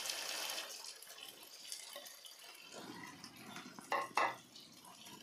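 Saucy Manchurian sizzling in a nonstick kadai, a soft hiss that fades after about a second. A silicone spatula then stirs and scrapes through it, with two short knocks against the pan about four seconds in.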